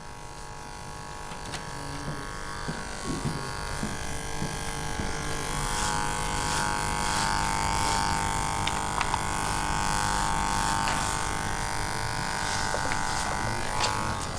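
Electric hair clippers buzzing steadily as they shave a man's head, growing louder over the first half.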